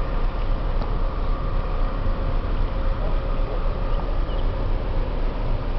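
Wind buffeting the microphone, a steady low rumble that wavers constantly, with a faint steady hum underneath.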